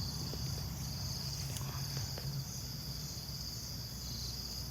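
Crickets chirping in a steady, high-pitched, continuous trill over a low hum, with a few faint ticks.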